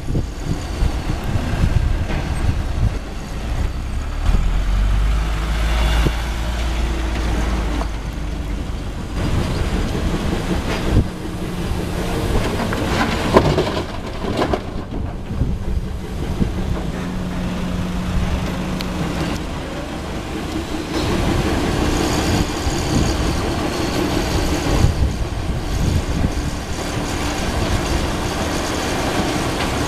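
Caterpillar 320D hydraulic excavator's diesel engine running under load as it digs and loads rock into a dump truck, with a few sharp knocks of stone and gravel.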